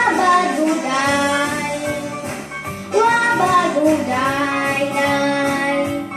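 A young girl singing a pop song over a recorded backing track, in two long sung phrases.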